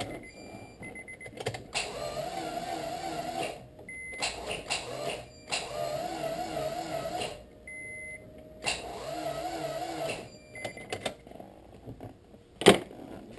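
An Integra GSR's starter motor whining in three separate tries of about two seconds each, spinning without cranking the engine over, so the car does not start. A single sharp knock near the end.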